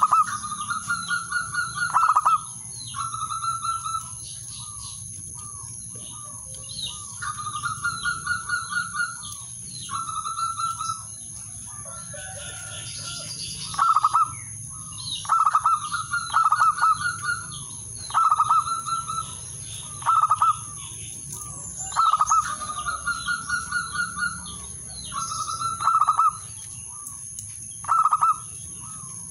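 Male zebra dove cooing over and over, each phrase a quick run of staccato trilled coos ending in a longer note, repeated every second or two. It is the male's call to rival doves.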